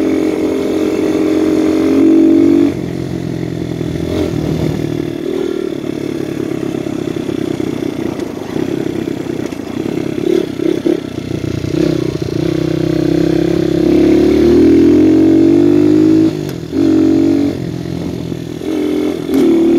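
Viper 150cc dirt bike's single-cylinder engine running under way, its pitch rising and falling as the throttle opens and closes. It gets louder briefly about two seconds in and again for a longer stretch in the last third.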